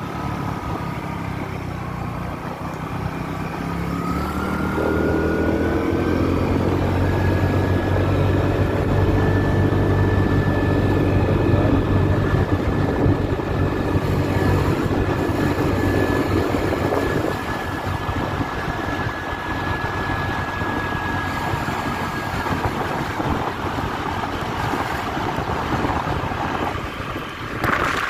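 SYM motor scooter engine running under way. It speeds up about four seconds in, holds a steady pitch and is loudest until about seventeen seconds in, then eases off. There is a short burst of noise near the end.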